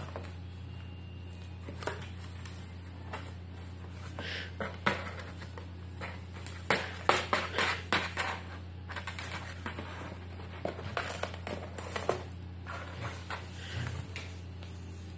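Cat scratching and biting at the edge of a cardboard pizza box, trying to get inside: irregular scrapes, taps and crinkles in short clusters, busiest in the middle and again a little later.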